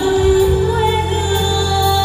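A woman singing a Nghệ folk-style song to a recorded backing track, holding long notes over a steady bass accompaniment.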